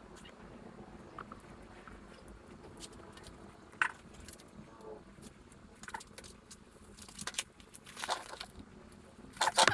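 Scattered metallic clicks and taps of hand tools and engine parts being handled, with a sharper click about four seconds in and a quick cluster of clatter near the end.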